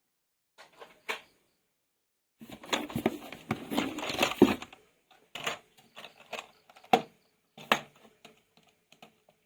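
Hands unpacking toys: a stretch of crinkling, rustling packaging, then a string of separate clicks and knocks of plastic being handled.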